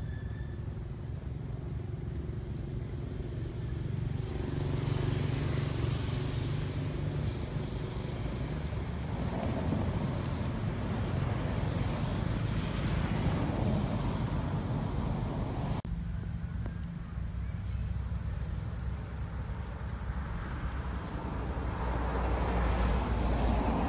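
Road traffic going past: a steady low engine rumble from cars and motorbikes, swelling and fading about three times as vehicles pass.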